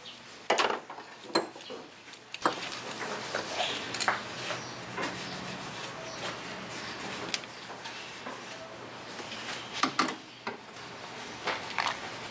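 Scattered clicks, knocks and light metallic clinks of hand tools and engine parts being handled in an engine bay, with the sharpest knocks about half a second in and again near ten seconds.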